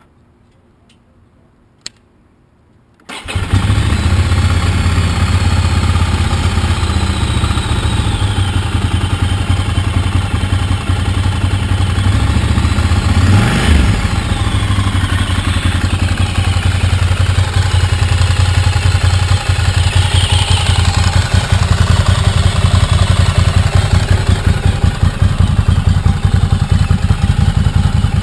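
Ducati Hypermotard 796's air-cooled L-twin on a full Termignoni exhaust with the baffle removed: after a short click, it starts about three seconds in and idles loudly.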